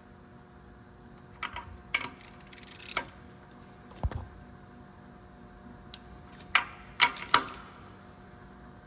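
Irregular clicks and knocks of hand tools and parts being handled during reassembly, with a dull thump about four seconds in and a cluster of sharp clicks near the end.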